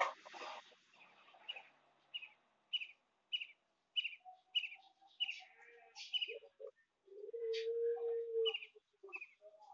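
A small bird chirping in short, evenly spaced high calls, about two a second. There is a brief rustle at the start, and about seven seconds in a steady mid-pitched tone lasts just over a second.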